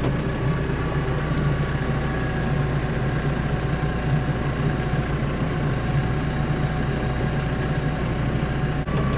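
Farm tractor's diesel engine running steadily while driving, heard from inside the cab as a constant low drone.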